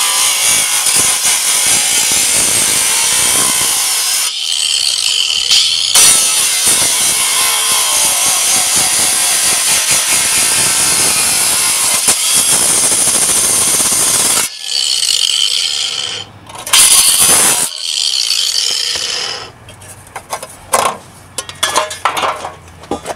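Ryobi angle grinder with a cutoff disc cutting through a sheet-metal exhaust heat shield: a loud, steady grinding hiss. It lets up briefly about four seconds in, leaving a steady whine, then cuts on until about fourteen seconds, followed by two short bursts; the last few seconds hold scattered clicks and knocks as the grinder is set down.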